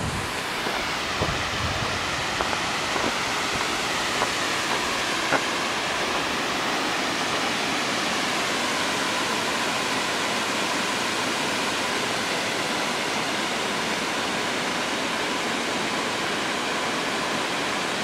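Todtnau Waterfall, a tall cascade over a rock face, rushing steadily. A few faint knocks in the first few seconds.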